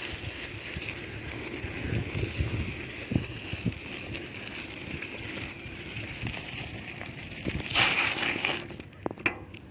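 Bicycle rolling fast, with steady tyre noise and scattered knocks from bumps, then a short loud skid of the tyre about eight seconds in, after which it goes quieter.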